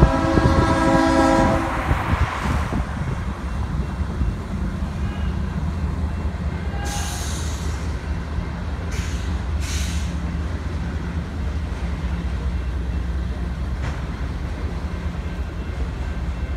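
A Leslie RS3L three-chime locomotive horn on a Norfolk Southern C44-9W sounds a chord that cuts off about two seconds in. The freight train's autorack cars then rumble steadily past the crossing, with a few brief hissy noises between about seven and ten seconds in.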